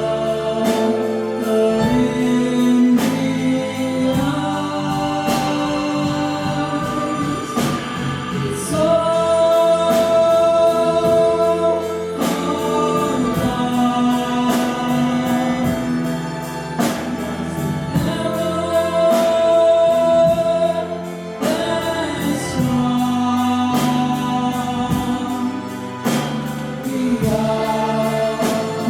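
Music: a song with several voices singing held notes together over a steady beat.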